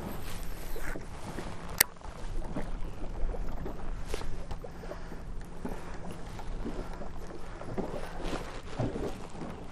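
Wind buffeting the microphone and small waves lapping against an aluminum boat hull while a lure is reeled in. A faint steady low hum runs through most of it, and there is one sharp click about two seconds in.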